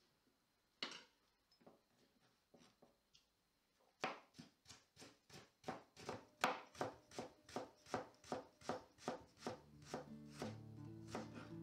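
Kitchen knife chopping fresh ginger on a cutting board: a few single cuts at first, then from about four seconds in a steady run of quick knife strikes, about three a second, as the ginger slices are cut into julienne strips. Background music comes in under the chopping near the end.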